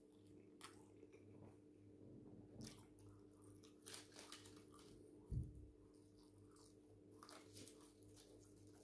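Faint chewing and crunching of fried chicken, in scattered short crisp bites, over a steady low hum. A dull thump about five seconds in is the loudest sound.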